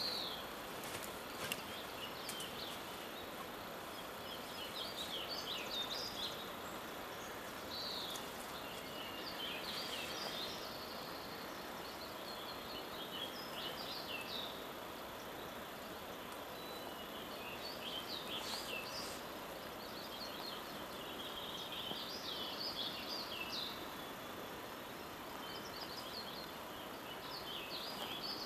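Small birds chirping in short, high phrases every few seconds over a steady rushing hiss of outdoor background noise.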